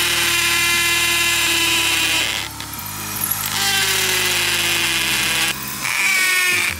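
Corded hammer drill boring into concrete with a masonry bit, the motor running steadily in three runs, easing off briefly about two and a half seconds in and again just before the end.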